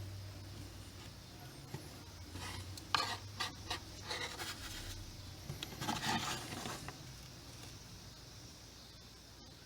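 Epoxy being scraped and rubbed onto a plastic headlight switch panel, in two short spells of scraping with a few small clicks, about three seconds in and again around six seconds in.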